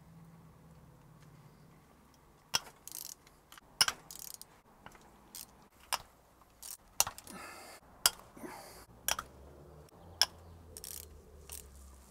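Hand tools and steel bolts clicking and clinking as the bolts holding the lower crankcase to the engine are undone. The clicks come at irregular intervals, with a few short rattling runs, starting about two and a half seconds in.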